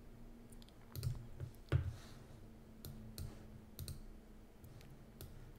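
Computer mouse clicks, about nine of them at uneven intervals, a few in quick pairs.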